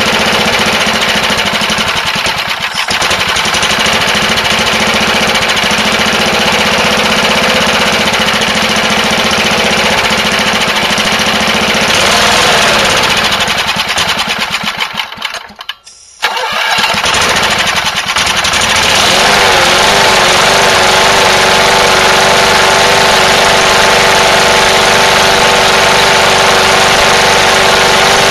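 The small engine of a 1981 Toro Whirlwind push mower is running with no gasoline, on the gas from a can of chewing-gum remover spray fed by hand into its air intake, its speed wavering. About fifteen seconds in the sound fades and cuts out briefly, then the engine is running again and steadies.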